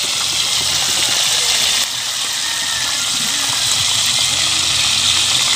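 Whole galunggong (round scad) deep-frying in a wok of hot oil over a charcoal stove: a steady, dense sizzle.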